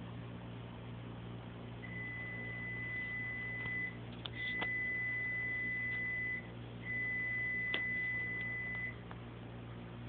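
Three long electronic beeps at the same high pitch, each lasting about two seconds with short gaps between, over a low steady hum; a couple of sharp clicks fall during the beeps.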